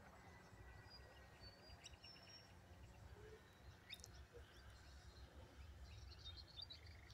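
Near silence: faint outdoor ambience with a low rumble and a few distant bird chirps.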